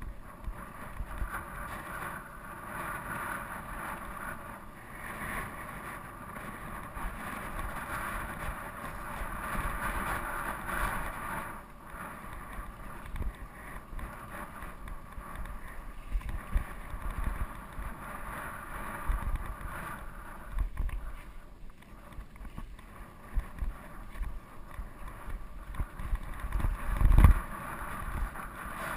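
Steel hardtail mountain bike rolling over a dry, rocky dirt trail: steady tyre noise on dirt and gravel with wind over the microphone, and the bike rattling and knocking over bumps. One hard thump near the end as it hits a rock.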